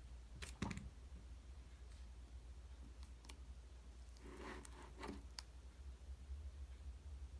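Slime being handled: a few faint clicks and a brief soft squish about four seconds in, over a low steady hum.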